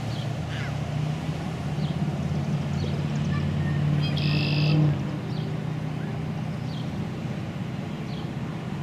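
Road traffic driving past: car engines and tyres making a steady low hum that swells to its loudest about four to five seconds in. A brief high-pitched tone sounds at that point for just under a second, and faint short chirps come about once a second.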